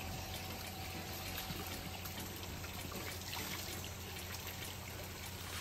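Water from a natural spring trickling steadily.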